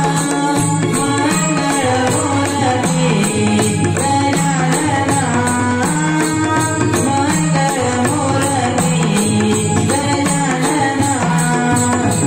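A male voice singing a devotional-style folk melody, accompanied by dholki and mridang drums played in a fast, steady rhythm.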